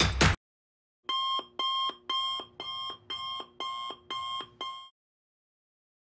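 Electronic alarm-clock beeping: eight even, high-pitched beeps at about two a second. A drum-beat music track cuts off just before them.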